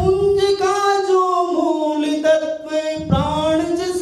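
A man singing a line of his Hindi poem in long, held notes that sink slowly in pitch, then rise again near the end.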